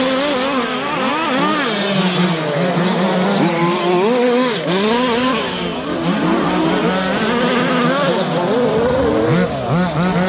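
Several radio-controlled short course racing trucks running at once, their motors rising and falling in pitch over and over as they speed up and slow down through the corners.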